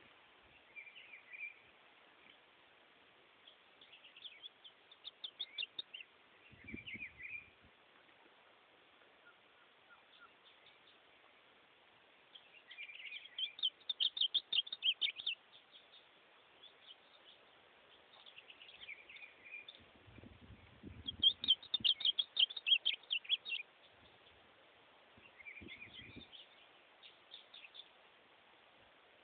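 Caged ultramarine grosbeak (azulão) singing: short phrases of quick, rapidly repeated notes every few seconds, with a few low rumbles under the song.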